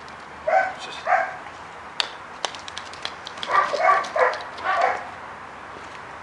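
Foxhound giving a run of short barks, four or five in quick succession from about three and a half seconds in, with a few sharp clicks just before.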